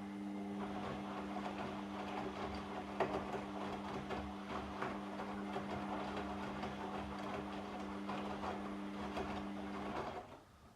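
Washing machine motor turning the drum in a wash cycle: a steady motor hum under the tumbling of wet laundry and water, with light knocks. It stops about ten seconds in as the drum pauses.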